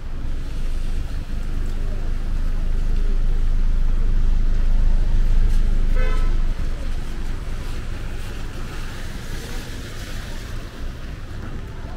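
A motor vehicle's engine rumbles close by, growing louder over the first few seconds, and a car horn gives one short toot about halfway through. The rumble then fades into a hiss of tyres on the wet street.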